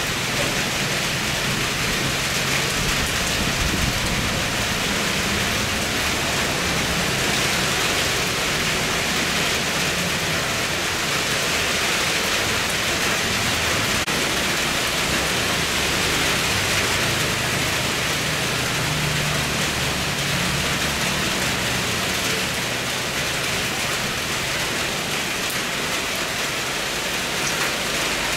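Steady rain falling, an even hiss that does not let up, with a low rumble from a landing airliner's jet engines faint underneath.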